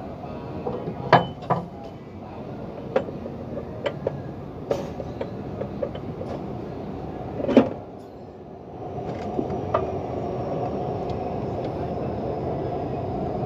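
Sharp metallic clinks and taps of tools and parts being handled at a truck's clutch pressure plate and flywheel, scattered through the first eight seconds, the loudest about a second in and about seven and a half seconds in. From about nine seconds a steady hum sets in.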